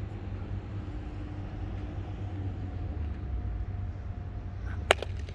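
A cricket bat strikes the ball with one sharp crack near the end, followed by a fainter click, over a steady low rumble.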